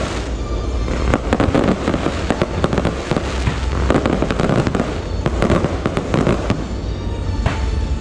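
Aerial fireworks display, with dense crackling and rapid pops and bangs from shells bursting one after another without a pause.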